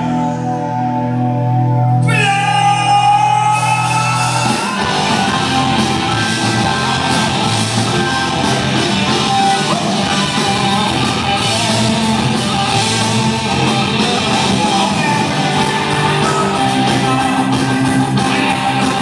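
Punk rock band playing live in a hall, heard from the audience. Sustained held chords open, with a falling slide about two seconds in. The full band with drums and electric guitars crashes in about four and a half seconds in and plays on.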